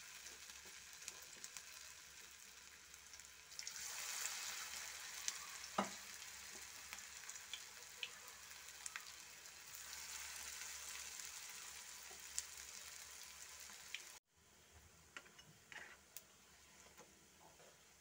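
Onion and rice-flour fritter batter deep-frying in hot oil, a steady sizzling hiss with light pops. It swells about three and a half seconds in and again near ten seconds as more pieces go into the oil. About fourteen seconds in it cuts to a much quieter sizzle with a few light clicks.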